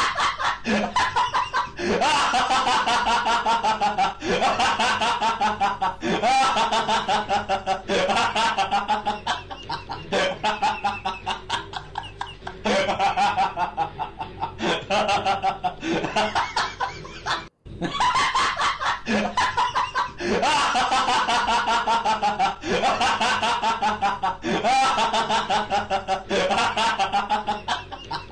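Canned laughing sound effect, looped: runs of rapid ha-ha-ha laughs falling in pitch, repeating about every two seconds, with a brief cut about seventeen and a half seconds in.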